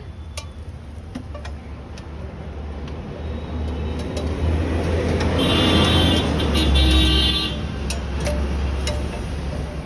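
Street traffic: a vehicle passes close by, growing louder to a peak a few seconds in and then fading, over a steady low hum. A vehicle horn sounds for about two seconds near the peak.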